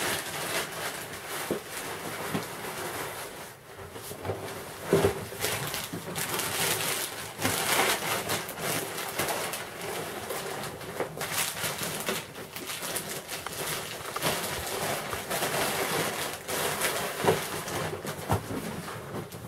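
Clear plastic wrapping crinkling and heavy PVC boat fabric rustling and scraping as a rolled inflatable boat is handled, pulled from its bag and laid down, with irregular crackles and a few soft knocks throughout.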